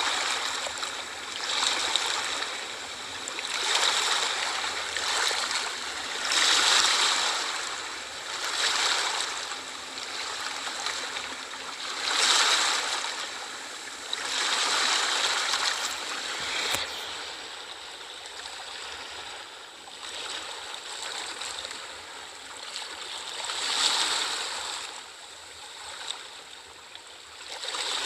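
Ocean surf washing in, a rushing swell every two to three seconds that rises and falls away. A brief click comes a little past halfway, and after it the waves are calmer.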